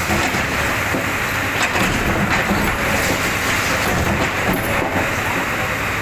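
Komatsu hydraulic excavator's diesel engine running under load while its bucket breaks up a concrete-and-brick wall. Constant crunching and grinding, with several sharp knocks of masonry breaking and falling.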